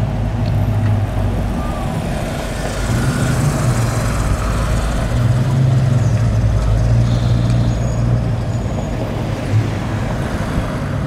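Old cars and pickup trucks driving slowly past, a steady deep engine note with a swell of engine and tyre noise as one goes by a few seconds in.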